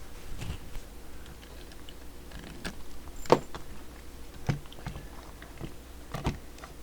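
Scattered light clicks and knocks of parts and tools being handled as a CB radio is taken apart, the loudest knock about three seconds in.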